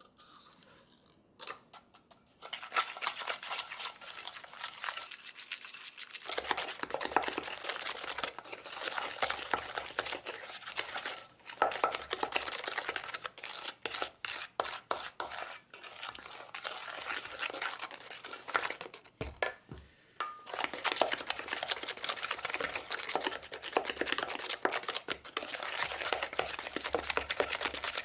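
Wooden slotted spatula beating egg yolks and sugar in a stainless steel bowl: fast, continuous scraping and clicking against the metal. It starts after a quiet couple of seconds and breaks off briefly about two-thirds of the way through.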